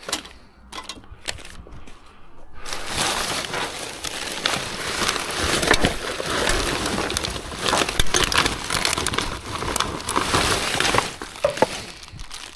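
Gloved hands rummaging through rubbish in a skip: plastic bags, paper and cardboard rustling and crinkling, with many small clicks and knocks. A few light clicks at first, then from about three seconds in a dense, loud rustling that eases off near the end.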